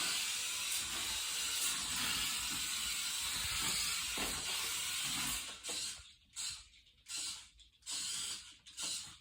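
Small electric drive motor of a remote-controlled toy mouse whirring as it runs, starting suddenly and running steadily for about five seconds, then in several short stop-start bursts as the remote is pressed.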